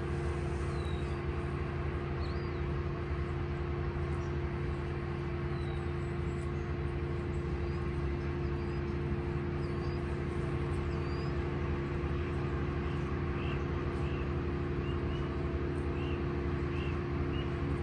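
Steady low machine hum with several held tones, like a motor running without change. Short, high bird chirps come in now and then, more often after about twelve seconds.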